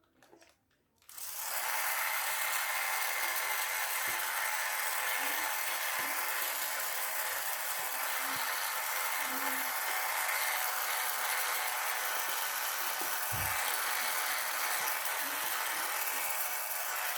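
Toy iron giving a steady hissing buzz while ironing doll clothes, starting about a second in. A dull knock sounds once, about three-quarters of the way through.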